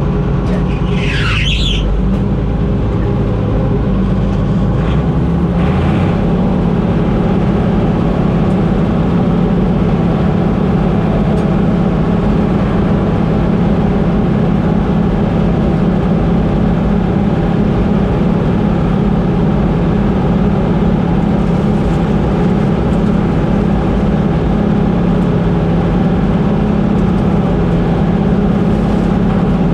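Combine harvester running steadily while harvesting. Its engine and threshing machinery make a continuous loud drone at an even pitch, with a brief higher sliding sound about a second in.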